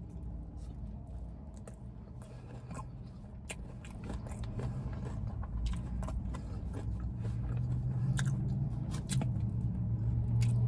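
Close-miked mouth sounds of a person eating fried chicken wings: biting and chewing, gnawing meat off the bone, with many small irregular clicks and crunches. A low steady hum grows louder through the second half.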